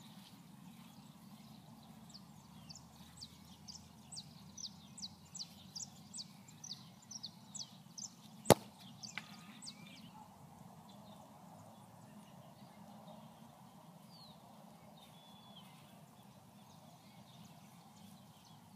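A single sharp thud of a football being kicked, about eight and a half seconds in. Before it, a bird calls in a quick run of short, falling chirps, about two a second, over a faint steady outdoor hum.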